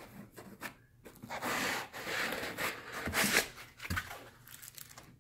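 Dense foam packing insert being pulled up and out of a cardboard shipping box: about two seconds of loud scraping and rustling of foam against cardboard, with a few soft knocks near the end.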